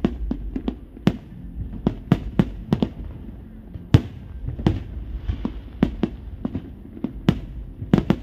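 Aerial fireworks bursting in quick, irregular succession, about twenty sharp bangs at two to three a second over a steady low rumble. The loudest bang comes about four seconds in.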